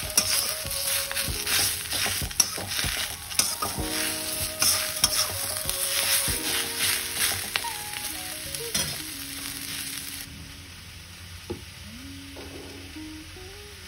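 Vegetables sizzling in a hot steel wok, stirred and tossed with a slotted metal spatula that scrapes against the pan, over background music. About ten seconds in, the sizzling and scraping stop suddenly and only the music goes on.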